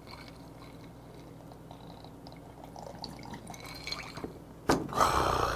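A person taking a loud slurping swig of an iced highball from a glass near the end, after a few seconds of faint small ticks.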